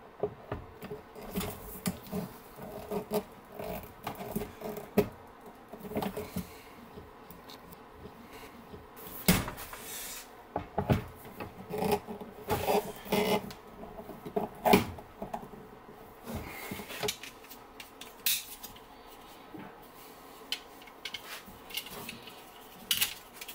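Irregular clicks, knocks and creaks as a long-handled hand tool is squeezed and worked against the plastic wall of a Packout case, with a few louder knocks about halfway through.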